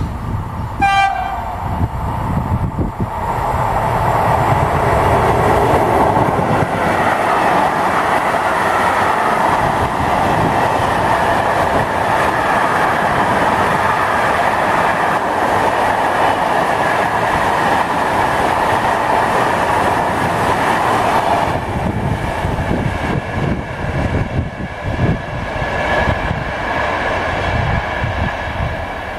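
A short train horn blast about a second in, then a freight train of tank wagons rolling past with a steady, loud rush of wheels on rail. The sound drops off about 21 seconds in as the train moves away.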